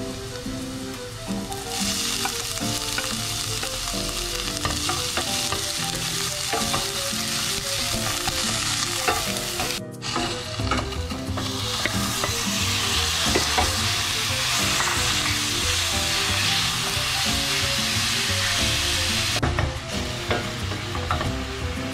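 Chopped onions sizzling in hot oil in a stainless steel pan, stirred and scraped with a wooden spatula. About ten seconds in, after a sudden break, ground beef goes into the pan and the sizzle gets louder as it is stirred.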